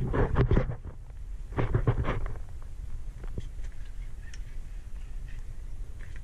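Clattering, rubbing handling noise from a rod and conventional fishing reel as the reel is cranked to bring in a fish, in two loud clusters in the first couple of seconds, then faint scattered ticks.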